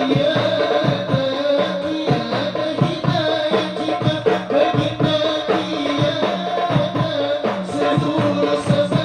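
Devotional sholawat music: a pitched melody line, likely voices, over fast, steady hand-drum and rattle percussion.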